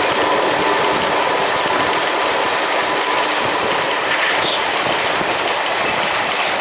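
Running noise of a moving passenger train heard at an open carriage window: a steady rush of wheels on rail and passing air. A thin steady whine, wheel squeal on the curve, sounds through the first half and fades out.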